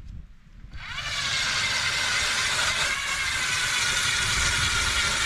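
A motor-driven machine starts up about a second in, its whine rising quickly, then runs steadily with a strong hiss.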